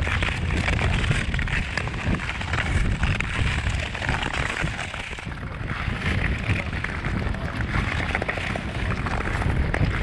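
Nordic touring skate blades gliding and scraping over natural ice, a continuous rasping hiss, with wind buffeting the microphone as a low rumble.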